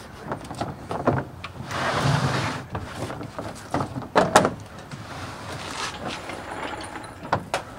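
Scattered knocks and clunks, with a stretch of scraping about two seconds in, as a bare 6.0-litre LQ4 V8 engine is shifted by hand in a pickup truck bed. The loudest is a cluster of knocks a little past four seconds.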